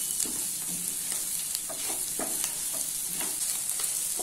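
Boiled mutton pieces sizzling steadily in oil in a frying pan over a high flame, with a wooden spatula scraping and turning them in short, irregular strokes.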